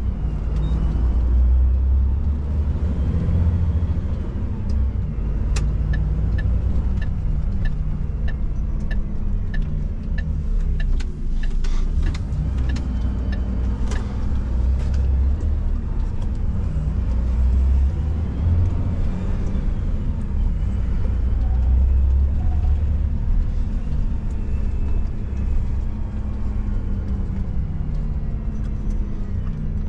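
Garbage truck's diesel engine running with a steady low rumble as it drives, heard from inside the cab. A third of the way in, a run of short, regular ticks, about two a second, lasts several seconds.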